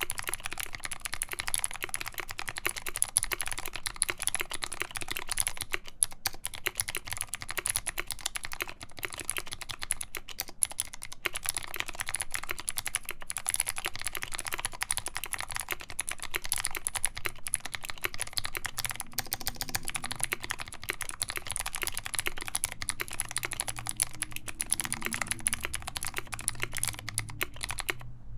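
Continuous fast typing on a KBD75v2 mechanical keyboard with lubed Kailh Speed Gold clicky switches in a full brass plate under PBT keycaps: a dense stream of sharp key clicks that stops abruptly right at the end.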